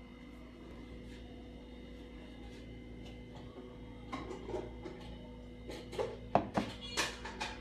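Steady low hum, then a run of short knocks and clinks in the second half.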